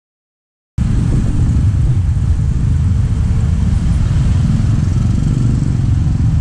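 Dense motor-scooter and car traffic heard from among it while moving: a steady low rumble of engines and road noise. It starts suddenly about a second in.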